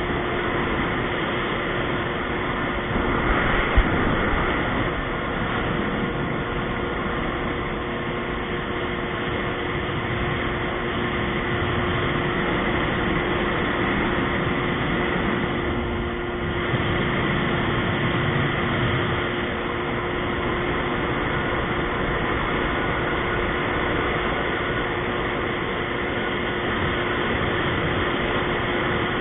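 Yamaha GP1300R WaveRunner running at a steady cruise: its three-cylinder two-stroke engine and jet drive give an even drone with a steady whine over a continuous rush. There is a short knock about four seconds in, and the note eases off and picks up again around sixteen seconds.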